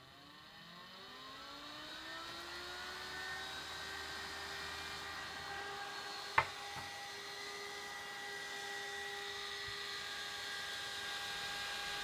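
Nidec UltraFlo server fan from a Dell PowerEdge R710, driven by a fan controller, spinning up. Its whine rises in pitch and loudness for about three seconds, then holds steady at roughly 4,800 RPM. One sharp click comes about six seconds in.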